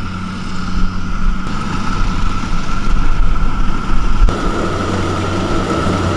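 Rice-harvesting farm machinery running steadily: a diesel engine's low, even tone with a steady high whine from the machine's drives. The sound shifts abruptly twice, about a second and a half in and again past four seconds.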